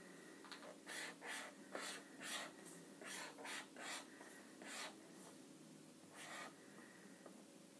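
Felt-tip marker drawing on paper, faint: a quick run of about a dozen short strokes, then one longer stroke about six seconds in.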